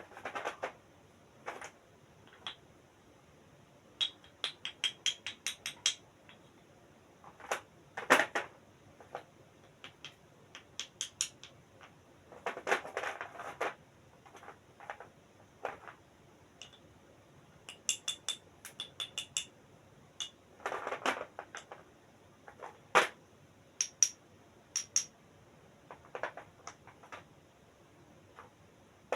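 A parcel being opened and its packaging handled: scattered sharp clicks and taps, short rustles, and quick runs of about six snips or ticks a second, twice.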